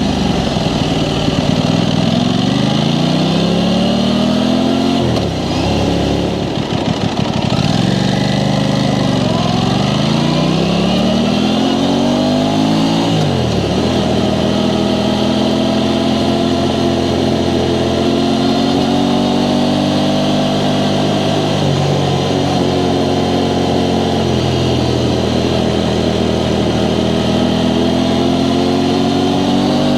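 Aprilia Tuono 660 Factory's parallel-twin engine through its stock exhaust, accelerating with rising revs. The pitch drops sharply at each gear change, about five seconds in and again around thirteen seconds. After that it holds a steadier, slowly climbing note as the bike cruises.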